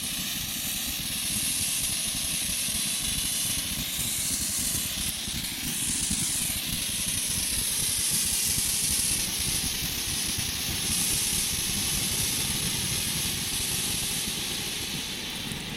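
Homemade firework fountain burning, its spark jet giving a steady hiss.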